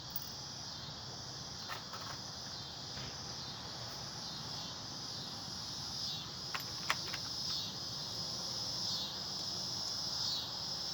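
Insects chirring steadily in a high band that swells and dips every second or two, with a few sharp metallic clicks about two seconds in and again near seven seconds.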